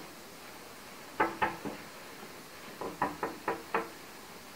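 Knuckles knocking on a wooden door: two knocks about a second in, then a quick run of about five knocks near the end.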